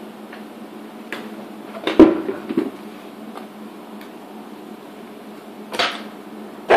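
A few separate knocks and clunks of a steel safety box and its hinged doors being handled, the loudest about two seconds in with a short ring after it, over a steady low hum.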